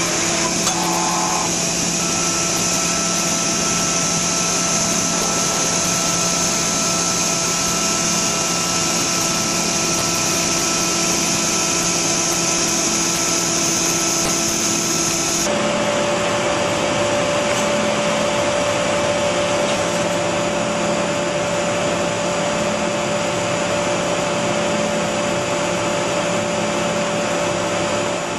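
Mitsubishi Heavy Industries µV1 micro milling machine running: a steady whirring hiss with several steady tones. About halfway through the sound changes abruptly, the high hiss dropping away and a steadier mid-pitched hum coming up.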